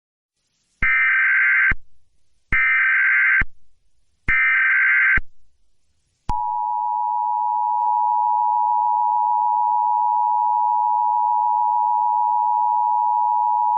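Emergency Alert System opening: three one-second bursts of digital SAME header data, the buzzy data screech that encodes the alert, then about six seconds in the steady two-tone EAS attention signal starts, a harsh held tone announcing an emergency alert.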